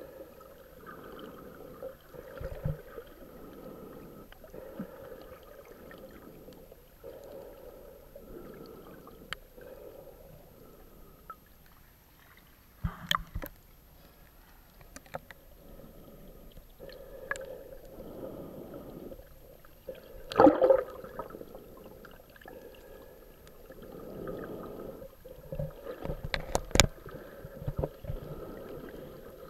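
Muffled underwater water noise picked up by a submerged camera, swelling and fading every second or two, broken by several sharp knocks and splashes, the loudest about 20 seconds in and a cluster near the end.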